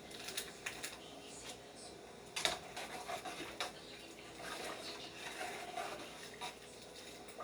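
Faint, scattered clinks and knocks of a cooking utensil against a pot, the loudest about two and a half seconds in.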